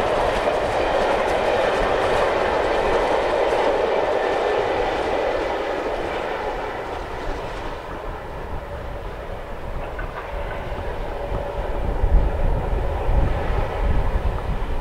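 LMS "Black 5" 4-6-0 steam locomotive hauling coaches past, its wheels clattering over the rail joints. The sound fades away over the first half as the train draws off into the distance. Near the end a low rumble of wind on the microphone takes over.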